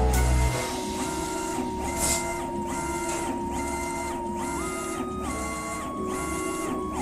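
Stepper motors of a 150 W CO2 laser engraver's gantry whining as the laser head raster-scans back and forth over an engraving. The whine dips briefly about every 0.7 seconds as the head reverses, and steps in pitch a few times. Music with heavy bass cuts off about half a second in.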